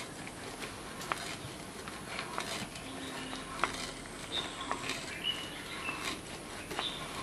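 Hand brace turning an old auger bit as it bores through hardwood walnut: irregular clicks and creaks from the bit cutting wood, with faint short squeaks in the second half.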